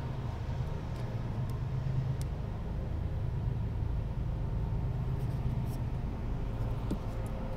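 Steady low background rumble, with a few faint light ticks from handling the plastic base of the rooftop air conditioner.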